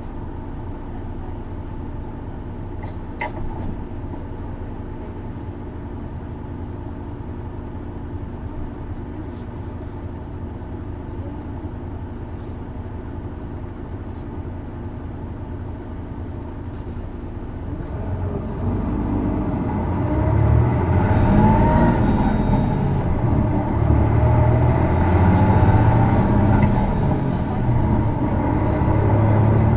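Isuzu Erga city bus engine heard from inside the cabin, running steadily and fairly quietly, then from about two-thirds of the way through working harder as the bus accelerates, getting louder with the engine note climbing. This engine is known for a distinctive abnormal noise when it runs.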